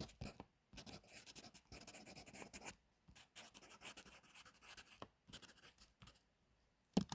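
Pencil writing on paper: irregular scratchy strokes with short pauses, stopping about a second before the end, followed by a single soft knock.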